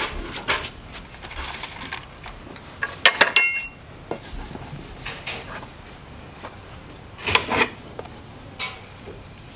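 Metal farrier's tools clinking and scraping while a hoof is worked on: scattered sharp clinks, the loudest a quick run of ringing metal clinks about three seconds in and another clattering burst about seven seconds in.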